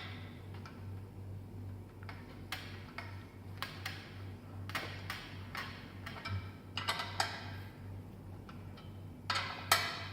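Short, irregular metal clicks and clinks of hand tools as the bolts on a bicycle crankset are tightened, a few at a time with pauses between.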